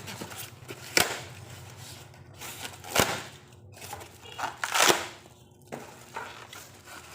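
Handling knocks from the parts of a leg exercise machine being unpacked: two sharp knocks about two seconds apart, then a short scraping rustle about five seconds in.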